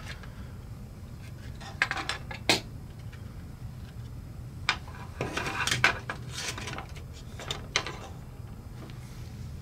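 Hard plastic case parts of a Fluke 87 multimeter clicking and knocking as the case halves are pulled apart and set down on a table: scattered short clicks, several of them bunched together in the middle.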